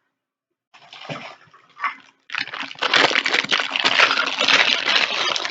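Packaging being handled and pulled apart, rustling and crinkling: a few faint scuffs, then continuous loud crinkling from about two seconds in.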